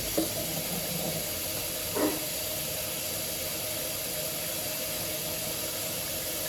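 Kitchen tap running steadily into a sink of dirty dishes, a constant hiss of water, with one brief sound about two seconds in.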